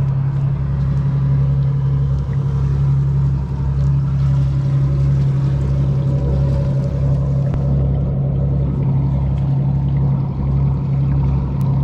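Trawler's inboard diesel engines running at high idle to charge the batteries: a steady low drone with a pulsing rumble beneath it.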